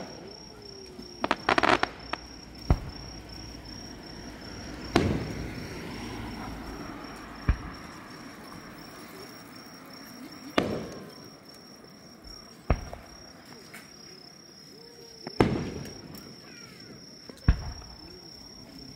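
Aerial fireworks shells bursting one at a time, a bang every two to three seconds, with a quick run of crackling cracks about a second in. Crickets chirp steadily underneath.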